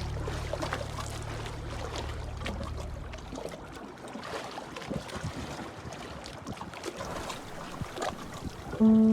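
Small waves lapping and trickling on a river, with little splashes and drips. A low held music tone fades out over the first three seconds or so, and music notes come back in just before the end.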